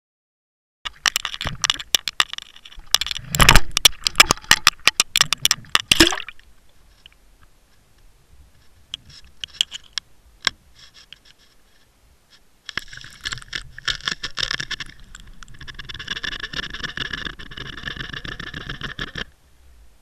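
Underwater camera's own audio under water: a few seconds of loud, rapid knocking and rattling against the housing, a quieter spell with scattered clicks, then a steady rushing hiss of water moving past the housing that cuts off near the end.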